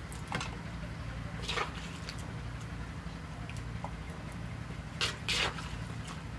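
Wet pounded salad being scraped and tipped out onto a plate: a few soft, wet scrapes and slides, the loudest about five seconds in, over a steady low hum.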